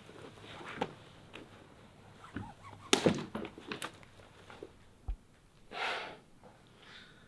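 Clothing rustling and a body scuffing and shifting on a carpeted floor as a man with zip-tied hands rolls over and gets to his feet. A sharp crack with a few quick clicks comes about three seconds in and is the loudest sound, and there is a single low knock a couple of seconds later.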